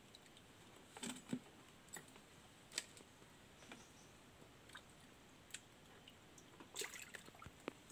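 Near quiet, with faint, irregular clicks and small knocks from hands and gear being handled in a wooden canoe, a little more frequent near the end.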